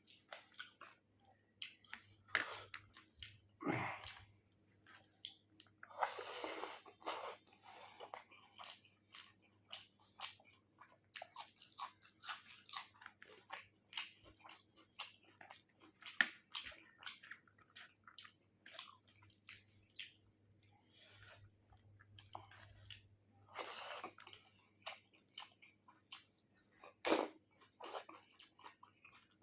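Close-up eating sounds: wet chewing, smacking and biting of chicken curry with rice, with occasional louder crunches.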